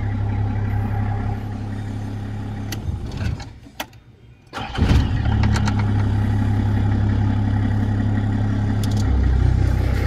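Nissan Safari engine idling, then switched off about three seconds in and restarted a second and a half later. The rebuilt starter catches it at once and it settles back into a steady idle, the starter now cranking fast after its flood-water damage was cleaned out and its Bendix drive and solenoid were replaced.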